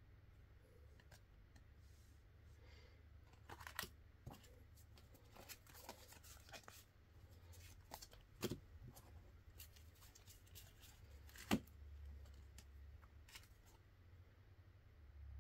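Quiet handling of UNO cards and their packaging: scattered rustles, taps and light clicks, with one sharper click about three quarters of the way through.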